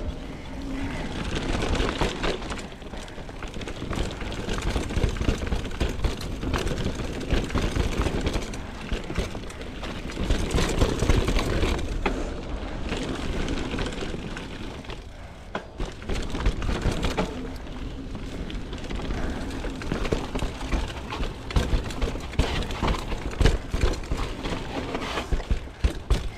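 Mountain bike running down a dirt trail: steady wind rush and buffeting on the action-camera microphone, tyre and trail noise, and frequent sharp knocks and rattles as the bike goes over bumps.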